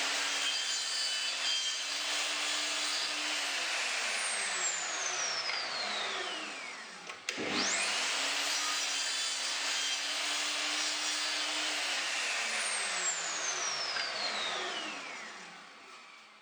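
Miter saw cross-cutting poplar plywood, twice: each time the motor whines up to speed, the blade cuts through the board, and the motor coasts down with a long falling whine. The second cut starts about seven seconds in.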